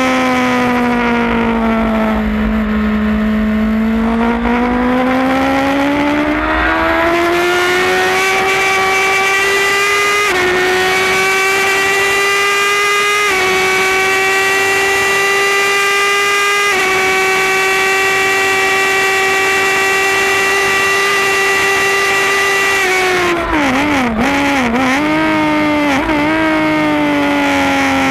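Suzuki GSX-R1000 inline-four race engine heard from onboard at full throttle: the revs sag, then climb hard through three quick upshifts and hold high for several seconds. Near the end come a run of rapid downshifts with throttle blips under hard braking, and the revs fall away.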